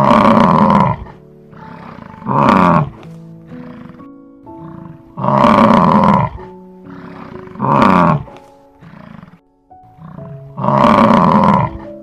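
Five loud animal calls, each about a second long, repeating every two to three seconds over background music with held notes.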